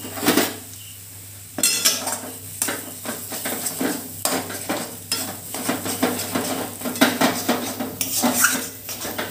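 Steel spatula scraping and clinking against a stainless steel kadai as thick ground chana dal paste is stirred into spices frying in ghee and oil, over a sizzle. The strokes come irregularly, with a short lull about a second in.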